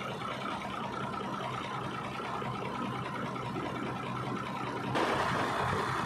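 Kobelco 220 excavator's diesel engine running steadily as the machine climbs onto a lowbed trailer. It gets louder and harsher about five seconds in.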